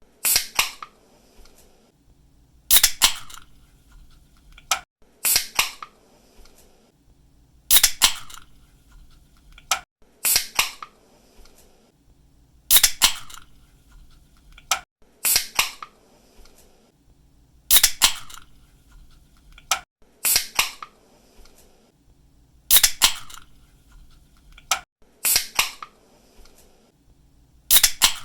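A drink can's pull tab clicking and popping open, followed by a short fizzing hiss. It repeats evenly about every two and a half seconds, about a dozen times, with a small click just before each pop.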